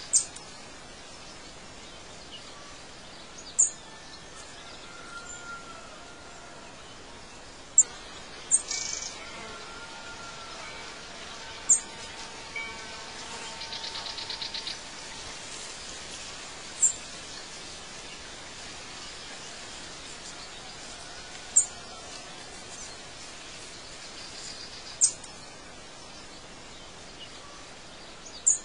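Nature ambience of birds chirping over a steady hiss: short, sharp high chirps every few seconds, a few softer whistles, and a buzzy rattling trill about halfway through.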